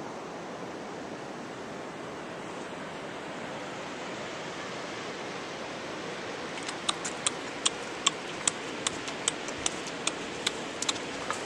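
Steady outdoor rushing noise. About two-thirds of the way in it is joined by a run of about a dozen sharp, light clicks, two to three a second.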